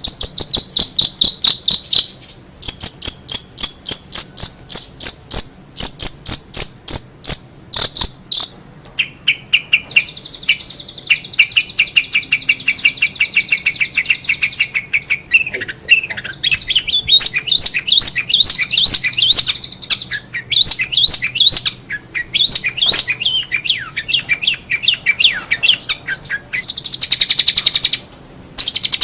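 Long-tailed shrike (cendet) singing a long, varied song: rapid runs of short repeated high notes, a fast trill partway through, then a string of quick rising whistled sweeps.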